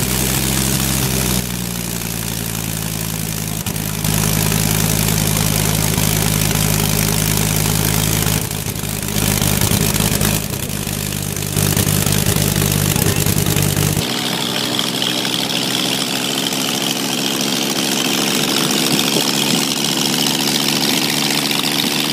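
Megola motorcycle's rotating five-cylinder radial engine, built into the front wheel, running on the stand with the wheel spinning, its speed stepping up and down a few times. After about fourteen seconds the sound changes to a higher, lighter engine note from a Megola being ridden along.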